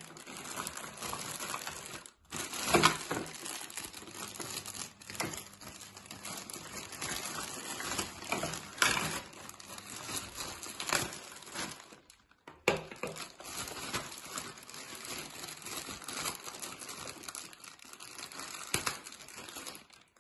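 Clear plastic packaging bags crinkling and rustling as they are handled and opened to unwrap vacuum cleaner accessories. There are two brief breaks, about two seconds in and about twelve seconds in.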